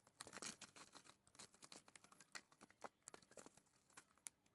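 A spoon stirring a sticky mixture of white glue, clear glue and hand soap in a bowl, making many faint, irregular small clicks and smacks.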